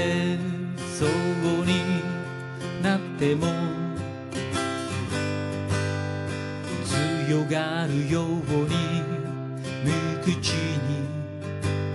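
Steel-string acoustic guitar strummed in a steady rhythm, with a man's singing voice over it at times.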